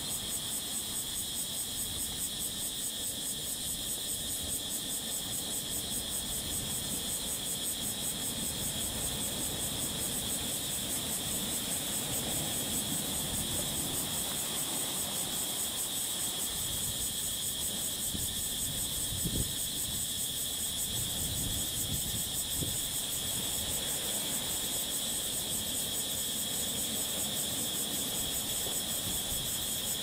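Small ocean waves washing in over shoreline rocks, a steady wash, under a constant high-pitched chorus of insects. A brief low bump comes about two-thirds of the way through.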